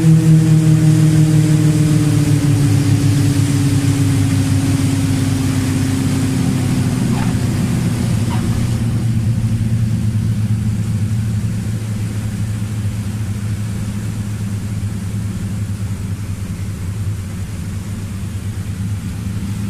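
Small piston-engine propeller plane heard from inside the cockpit, its engine and propeller drone falling in pitch over the first several seconds as the power comes back after landing, then settling into a steadier, lower drone while taxiing.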